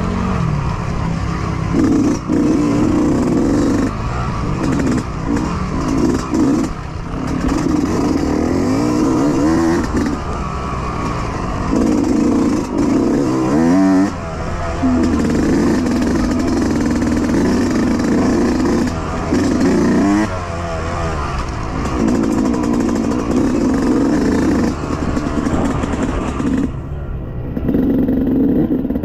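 Yamaha YZ125X single-cylinder two-stroke dirt bike engine under hard riding, the revs climbing in repeated rising sweeps and dropping away as the throttle is opened and shut.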